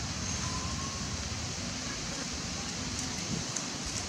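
Steady outdoor background noise: a low rumble with a faint hiss over it, and a few faint clicks about three seconds in.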